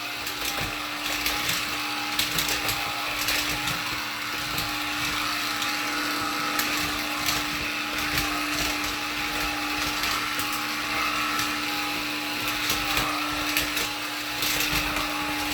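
Black & Decker cordless lithium pet vacuum running steadily on a hard floor, its motor holding one even hum, with scattered sharp clicks as it picks up dirt and grit.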